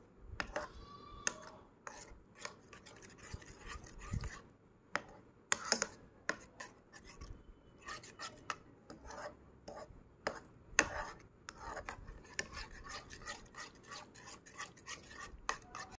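Steel spoon scraping and clicking against the sides of a bowl while stirring a thick yogurt-and-spice marinade, in irregular strokes.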